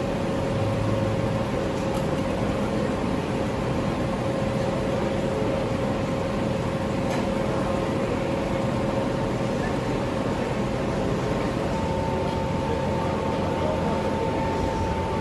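Steady machine hum and rushing noise with a constant tone; a second, higher tone joins about twelve seconds in.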